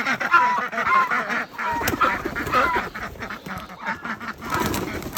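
A flock of domestic ducks quacking and chattering, with many short calls overlapping one another.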